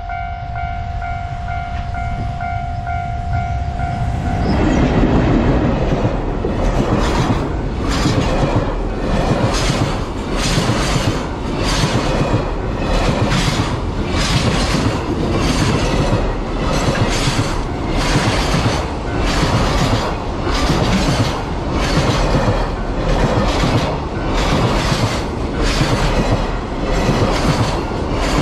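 Japanese level-crossing warning bell ringing in a steady pulsing two-tone pattern. About four seconds in, a container freight train hauled by an EF210 electric locomotive rumbles across the crossing and drowns the bell. Its wagons' wheels clatter over the rail joints in a regular rhythm of roughly one clatter a second.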